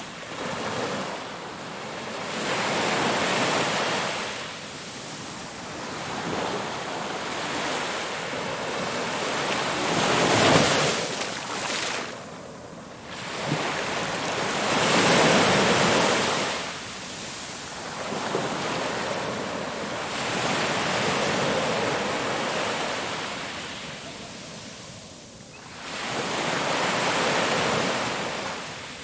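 Ocean waves breaking and washing on a shore, a steady rush that swells and ebbs every few seconds as each wave comes in, the loudest surges about ten and fifteen seconds in.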